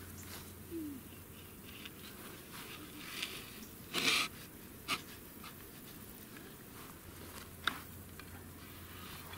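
Handling sounds of a plywood folding table as its wooden stake is pressed into grassy ground and its top is fitted: a few short rustles and knocks, the loudest about four seconds in, and a sharp click near the end, over a faint steady low hum.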